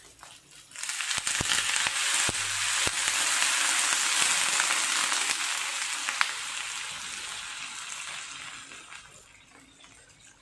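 Water poured into a hot wok of fried chicken feet and aromatics, hitting the hot oil with a loud hissing sizzle and a few sharp pops. The sizzle starts about a second in and slowly dies down over the last few seconds as the water fills the pan.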